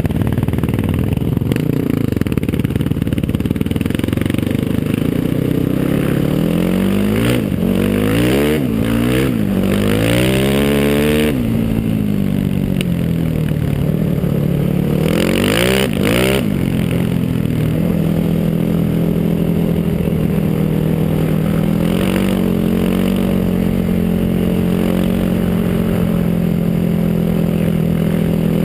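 Sport ATV's single-cylinder four-stroke engine, ridden hard on snow. It revs up and drops back several times in quick succession, settles into a steady pull for several seconds, then revs up again near the end.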